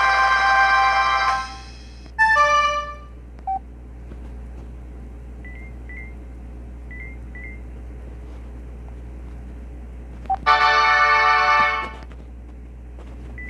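Casio G'zOne flip phone playing ringtones and alert tones through its small speaker. A musical ringtone cuts off about a second and a half in, and a short run of notes follows. Near the end comes a second loud alert tone lasting about a second and a half, with faint short beeps about once a second in between.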